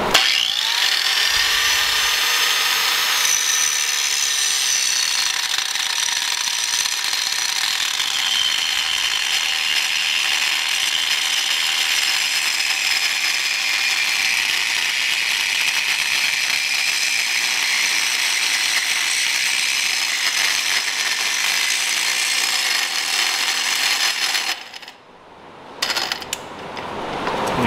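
Cheap Harbor Freight angle grinder with a cutting wheel cutting a cast mounting boss off the front of a Ford 3V engine: a high motor whine with grinding noise that spins up at the start and sags lower in pitch as it bears into the metal. It stops about 24 seconds in and runs again briefly near the end; the grinder is overheating and smoking.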